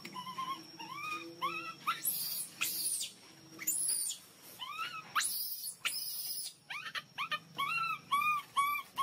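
Baby macaque crying for milk: a rapid string of short, arched whimpering calls, several a second, breaking into louder shrill screams about two seconds in and again around five seconds in.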